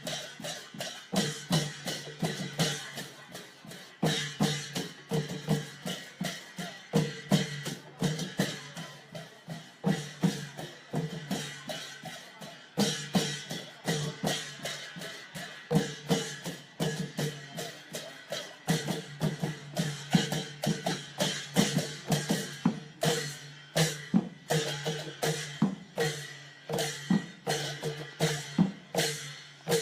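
Ensemble of Thai klong yao long drums playing a fast, dense, steady beat, many strokes a second without a break.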